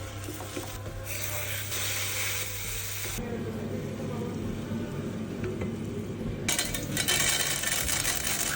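Food sizzling in a hot frying pan while being stirred, in short edited clips that change abruptly a few times.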